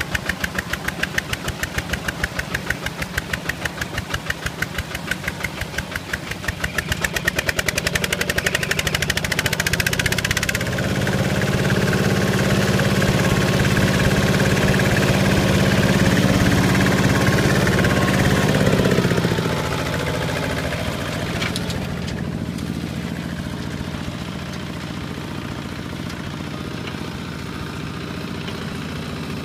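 Single-cylinder diesel engine of a Kubota two-wheel walking tractor chugging through mud with a fast, even pulsing beat. About ten seconds in it turns to a steadier, louder drone, which drops back a little before twenty seconds to a quieter steady run.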